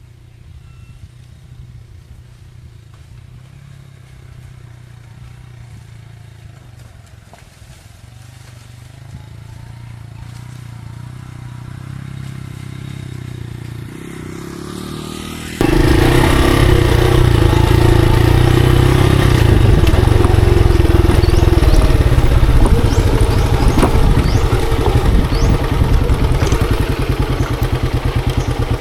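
Monarch Axis 125 trail motorcycle engine running, at first quietly and slowly growing louder, then about halfway through suddenly much louder and noisier.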